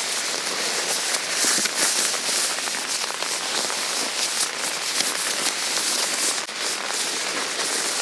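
Crinkling and rustling of a thin nylon dog raincoat being handled and pulled onto a small dog, with rain pattering on the tent fabric; a dense, steady crackle of tiny clicks.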